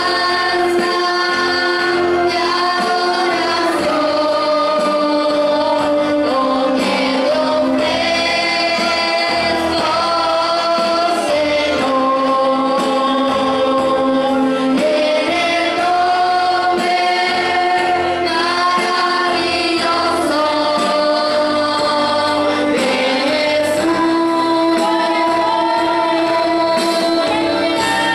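A choir of voices singing a Christian praise song together, in long held notes that move slowly from one pitch to the next.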